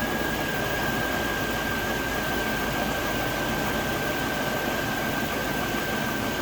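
2001 Chevrolet Tahoe's 5.3-litre V8 idling steadily just after firing up on the first try following a cylinder head repair, with a thin, steady high whine over the engine noise.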